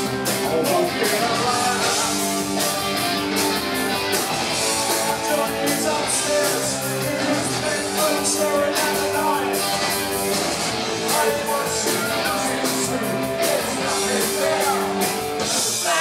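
Punk rock band playing live: distorted electric guitars and bass guitar over drums keeping a steady beat.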